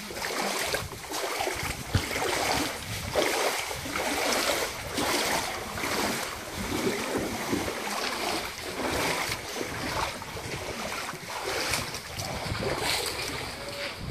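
Steady rush of flowing stream water, with irregular crunching steps on stones and dry leaves and wind buffeting the microphone.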